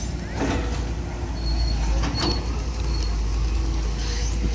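Diesel engine of a Caterpillar 320D long-reach excavator running steadily, growing louder about a second and a half in, with a couple of brief knocks.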